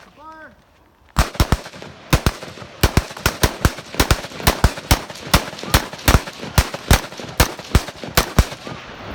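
M4-type rifle shots fired in quick succession, about two to three a second at an uneven pace, starting about a second in and stopping near the end.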